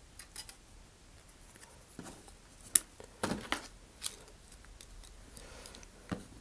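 Cardstock template pieces and small tools being handled on a cutting mat: a few sharp clicks, the sharpest a little under three seconds in, with a short rustle of card just after it.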